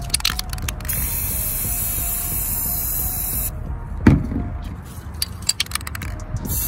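Aerosol spray paint can spraying paint onto the water surface of a hydro-dip tub in one steady hiss of about two and a half seconds, preceded by a quick rattle of the can's mixing ball. A single thump about four seconds in, then more rapid rattling clicks.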